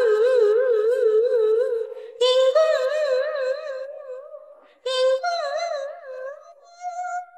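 A female voice humming in a song, three long held notes with a wavering vibrato, each starting sharply and fading away.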